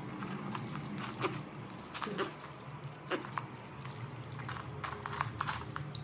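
Piglet biting and chewing at grapes, making irregular clicks and smacks, several in quick succession about five seconds in.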